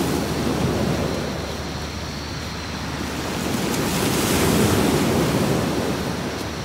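Sea waves washing onto a beach: a steady rushing surf that swells at the start, eases off, and surges again about four seconds in.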